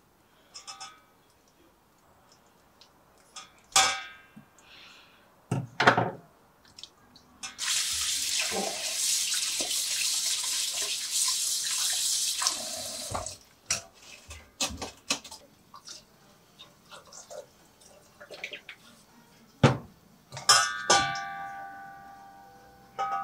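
Kitchen tap running for about six seconds over webfoot octopus in a stainless steel mesh strainer at a steel sink, with sharp knocks and clinks of the metal strainer before and after. Near the end a metal strainer strikes cookware with a short ringing clang.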